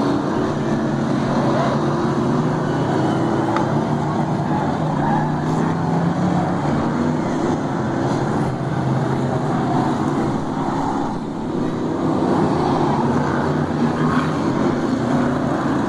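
Engines of several winged oval-racing stock cars running as they lap the track and pass close by, loud and steady with a brief dip about eleven seconds in.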